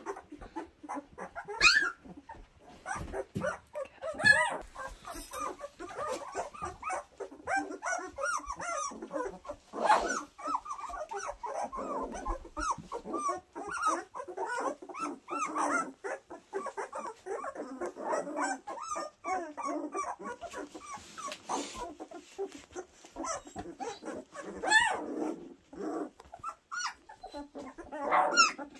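A litter of two-week-old puppies whimpering and squeaking: many short, high calls that overlap and follow one another without pause, with a few louder cries among them.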